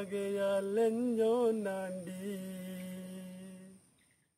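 A man singing a Malayalam song unaccompanied, holding long notes with a few wavering turns; the last note is held and fades out near the end.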